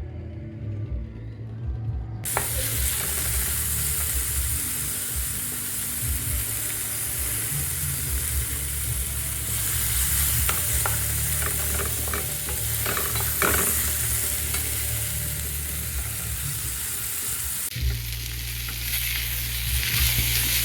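Food sizzling in hot oil in a pan, starting about two seconds in, with scattered clicks and scrapes of a utensil stirring it.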